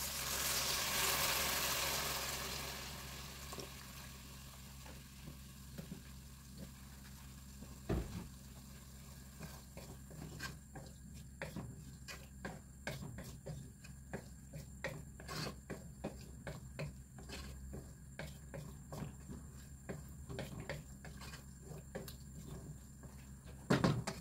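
Soy sauce poured into a hot pot of browned chicken and onions sizzles loudly for the first few seconds, then the sizzle dies down. Later a wooden spoon stirs the pan with many small scrapes and taps against the pot, with a single knock about eight seconds in and another near the end.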